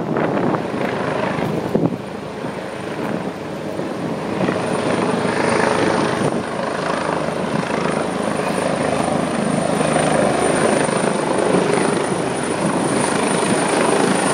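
Air ambulance helicopter coming in to land, its rotor and engine noise growing louder over the first few seconds and then holding steady, with a thin high whine through it.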